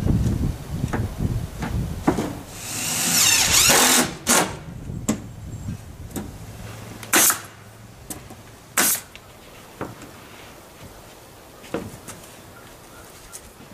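Pneumatic brad nailer fastening plywood sheeting: a handful of sharp shots with a hiss of air, a second or more apart, after a longer whirring run about three seconds in. Lighter taps near the end.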